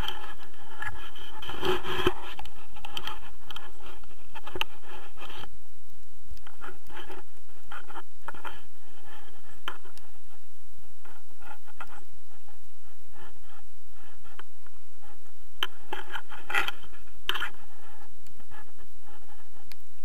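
Irregular scraping and rubbing handling noise, with scattered clicks, from clothing and harness straps brushing against a harness-mounted action camera; the noise is busiest about two seconds in and again near the end.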